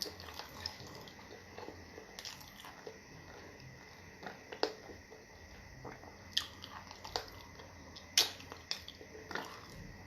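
Close-up eating sounds of fufu and stew: wet chewing, smacking and mouth clicks at irregular intervals, with the sharpest click about eight seconds in.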